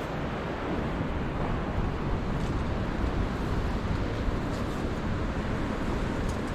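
Steady rushing of wind on the microphone mixed with ocean surf, with no let-up.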